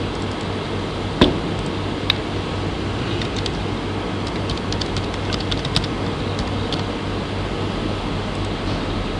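Two sharp mouse clicks about a second apart, then a few seconds of computer keyboard key taps, over a steady low hum and hiss.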